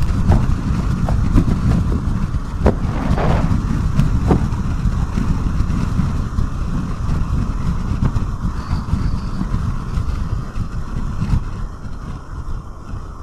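Wind buffeting the helmet microphone of a rider on a Yamaha Xmax 300 maxi scooter at road speed: a loud, constant rumble with the scooter's running and road noise beneath it. There are a few brief clicks in the first few seconds.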